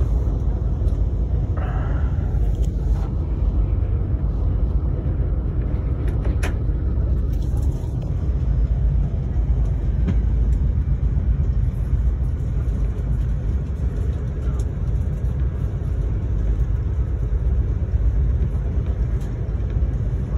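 Steady low rumble of a VIA Rail passenger car rolling along the track, heard from inside the coach. A short hiss comes about two seconds in and a sharp click about six seconds in.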